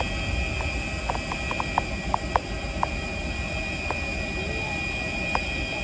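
Distant jet airliner engines at takeoff power: a steady low rumble with a constant high whine, and a scatter of short clicks about one to three seconds in.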